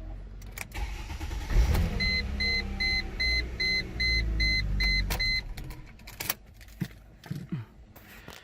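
Mercedes-Benz ML350 engine cranking and starting about a second and a half in, then running, now that the faulty all activity module (SAM/body control module) behind its no-crank, no-start fault has been replaced. Over it a chime beeps about eight times, a little over two beeps a second.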